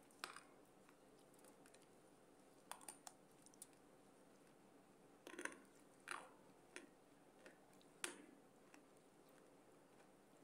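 Close-up crunching of baked clay pot pieces being bitten and chewed: scattered sharp crackles, some in quick clusters, loudest about five and a half and eight seconds in, over near silence.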